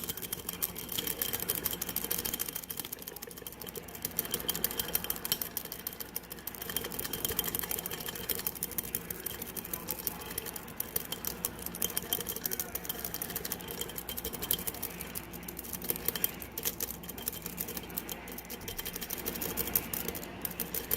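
A lock pick and tension wrench working the pins of a pin-tumbler lock: light, irregular metal clicks and scrapes, many per second, over a steady faint hum.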